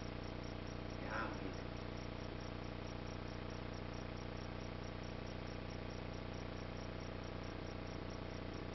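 Steady electrical hum and hiss of the sound system's room tone, with no one speaking; a brief faint sound about a second in.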